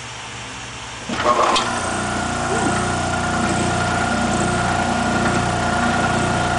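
The electric motor of an old Easy wringer washing machine, which the owner thinks is a repulsion-start motor, starts about a second in with a clatter and a click, then runs on with a steady hum. It is a heavy start after years of sitting: it drew enough current to dim the lights, which the owner puts down to the motor being a bit stuck.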